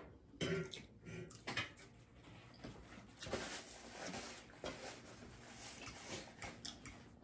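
Quiet eating sounds: chewing with scattered small clicks and taps.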